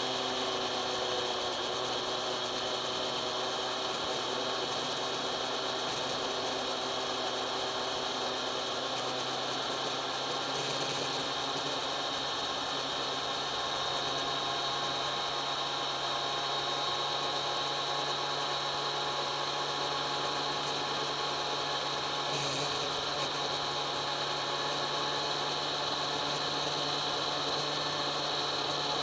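Kawasaki ZX-10R inline-four engine running at a steady cruise under way, its note holding nearly level and shifting slightly in pitch about a third of the way in.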